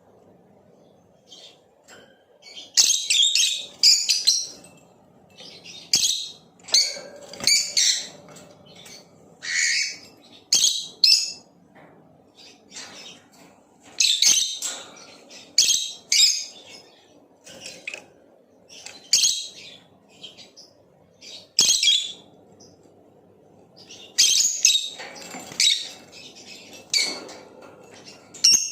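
Blue opaline lovebird chirping in short bursts of sharp, high chirps, a bout every few seconds, with quiet gaps between.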